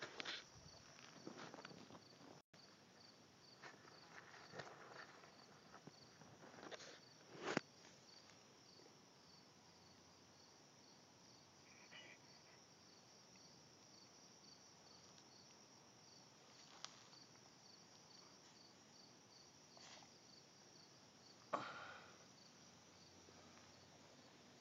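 Near silence with faint, steady insect chirping, about two high pulses a second, broken by a few soft rustles and knocks, the loudest one near the end.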